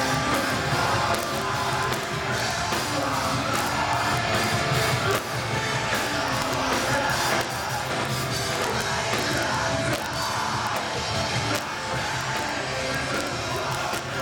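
A rock band playing a song live, with drums hitting steadily under dense, loud amplified instruments.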